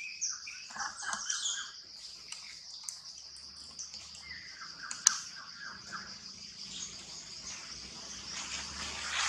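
Birds chirping and calling in short note series, over a steady high-pitched hiss, with one sharp click about five seconds in.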